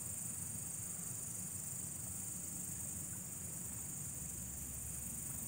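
Night chorus of crickets and other insects: a steady, high-pitched trilling.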